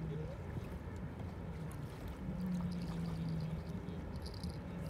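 Outdoor seashore background of wind and water, with a low steady hum that swells for about a second in the middle and fades again.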